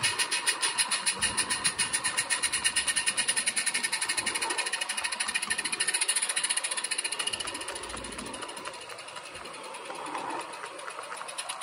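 Exhaust beats of a 16mm-scale Roundhouse live-steam model of a Vale of Rheidol locomotive: a rapid, even chuffing that fades away about two-thirds of the way through.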